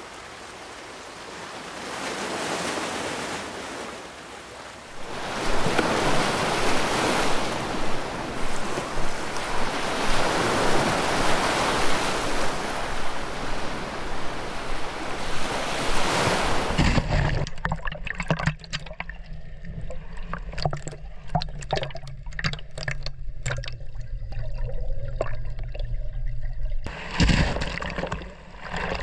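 Sea waves washing and surging on a beach. About two thirds of the way through the sound changes to a duller, lower rumble with scattered knocks, and there is a loud low thump near the end.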